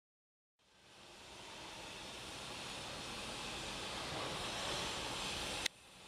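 Steady outdoor roar of distant engine noise, building gradually after a silent start. About five and a half seconds in there is a sharp click, the sound drops out, and it builds up again.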